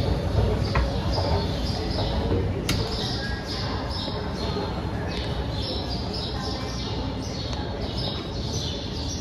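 Small birds chirping in quick, high, falling notes about twice a second, starting about three seconds in, over a steady low rumble, with a few sharp clicks early on.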